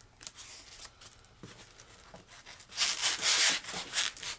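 EPP foam block rubbing against the EPP foam wing as it is worked into the cut-out by hand: light scattered rustling at first, then a loud, harsh rubbing with a few surges from a little past halfway.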